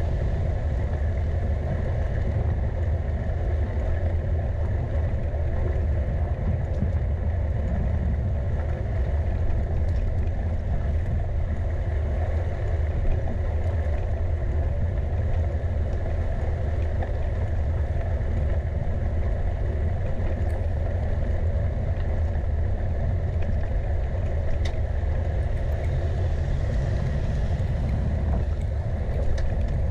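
Steady low rumble of wind buffeting the microphone while riding a bicycle, mixed with road noise.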